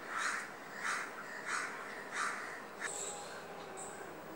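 A crow cawing: four caws about two-thirds of a second apart, followed by a couple of short high chirps near the end.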